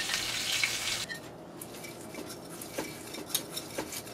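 Hot vegetable oil sizzling in a heavy-bottomed pan, cutting off suddenly about a second in. Scattered light clinks and taps of utensils and pans follow.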